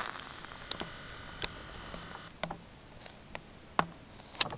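Handling noise on a handheld camera: a series of sharp clicks and taps, the loudest near the end. For about the first two seconds there is also a faint whirr of the lens zoom motor.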